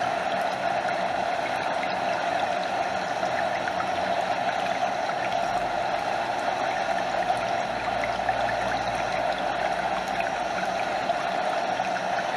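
Stream water flowing steadily, with lapping close by and water spilling over a small waterfall, an even, unbroken rushing.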